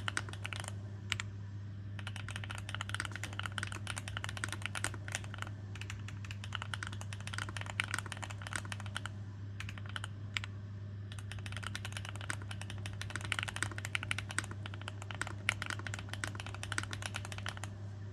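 Rainy75 mechanical keyboard with Gateron Smoothie switches being typed on in quick, continuous runs of keystrokes, with brief pauses between bursts. A steady low hum sits underneath.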